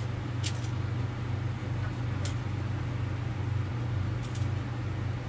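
Steady low mechanical hum, with three faint short clicks spread through it.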